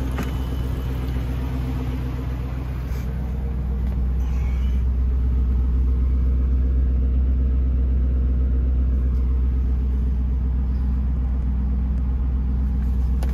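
2005 Ford GT's supercharged 5.4-litre V8 idling steadily at about 1,000 rpm, still warming up after a cold start. It gets a little louder from about four seconds in.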